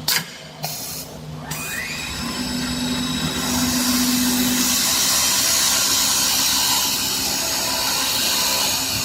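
CNC wood lathe running. A few short knocks come first, then a rising whine as a motor spins up, then a steady machining noise that grows louder and fuller about three and a half seconds in.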